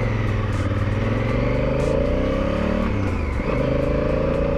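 Honda Africa Twin CRF1000L's parallel-twin engine accelerating under load, its pitch climbing steadily. About three seconds in it drops at a gear change, then climbs again.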